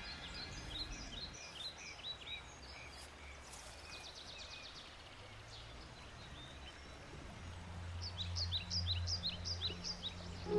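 Birds chirping in quick runs of short, high, falling notes, over faint outdoor background noise. The chirping comes at the start, fades, and returns near the end, when a low steady hum also comes in.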